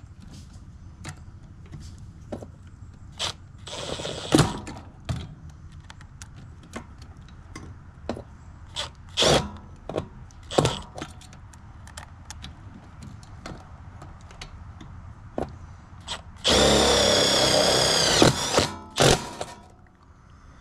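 Cordless power drill/driver running for about two seconds near the end, a steady whine that sags as it stops. Before it come scattered clicks and knocks of tools and metal parts being handled.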